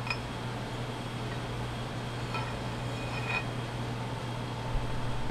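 Steel rod of a double rod end hydraulic cylinder being slid carefully into its tube, with a few faint light metal clinks over a steady low hum.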